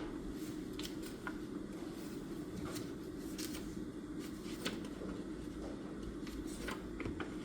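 Desk study sounds: scattered light clicks and rustles of pen and paper, irregular and a dozen or so in all, over a steady low room hum.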